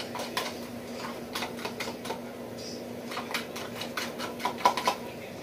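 Fork whisking raw eggs in a plastic container: a string of quick, irregular clicks and taps as the fork strikes the container, over a steady low hum.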